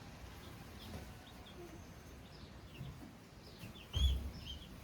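Baby chicks in a brooder cheeping, short high peeps scattered throughout. A dull low thump about four seconds in.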